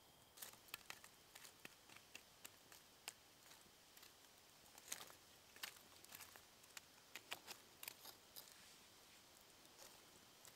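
Faint, irregular crackles and pops from a small wood fire's glowing embers as a stick pokes and spreads the coals.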